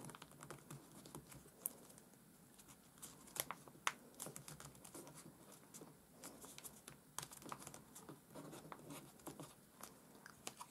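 Faint rustling and crinkling of folded origami paper, with scattered small clicks, as paper flaps are slotted into paper pockets and pressed flat.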